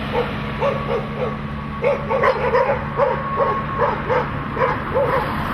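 Dogs barking in a rapid, steady run of short barks, about two to three a second, over a steady low hum.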